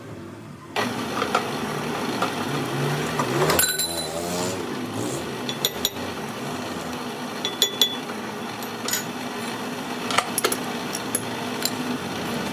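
Metal tools and parts clinking and knocking, with scattered sharp ticks and a brief ring about three and a half seconds in, over a steady machine hum.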